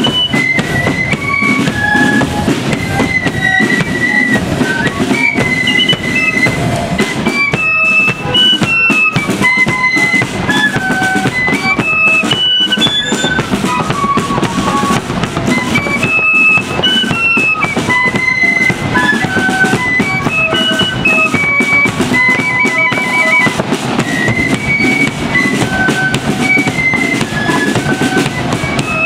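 Marching flute band playing a tune: many flutes together carrying a stepping melody over a steady bass drum beat.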